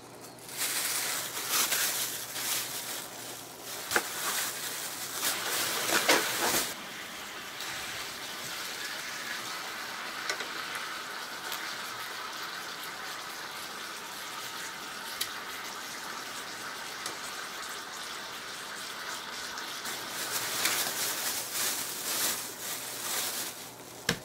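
Chicken thighs sizzling on a hot griddle pan: a steady frying hiss through the middle. Louder, irregular crackling and clicks run through the first several seconds. Plastic bag rustling comes near the end.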